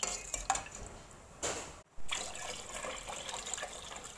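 Water poured from a plastic jug into a large stainless steel pot of broth, splashing steadily, with a brief break about two seconds in.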